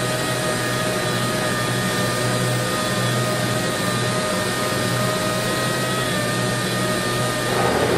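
Steady car-plant machinery noise: a constant hum with several level, high whining tones over a broad rush.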